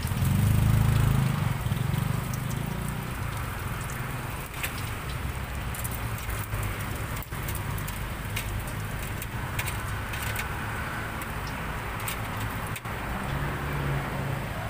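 Hot oil sizzling steadily as sausages and fish balls deep-fry in a steel pot, with scattered sharp clicks of metal tongs. Under it is a low rumble, loudest in the first two seconds and again near the end.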